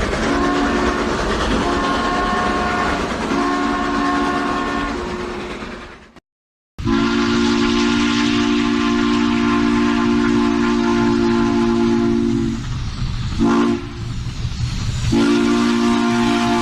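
Multi-tone train whistle sounding a chord over the noise of a running train: three blasts, then after a brief cut a long blast of about six seconds, a short toot, and another blast starting near the end.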